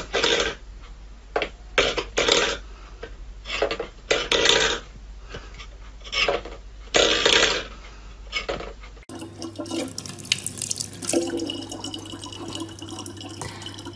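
A steel pet bowl clattering on a wooden floor as a cat paws at it, a string of sharp metallic clanks. About nine seconds in, a tap running steadily in a thin stream of water.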